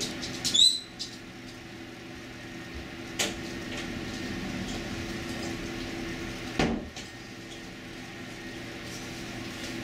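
Steady household hum with a few sharp knocks: a loud clack with a brief squeak about half a second in, a click about three seconds in and a dull thump about seven seconds in.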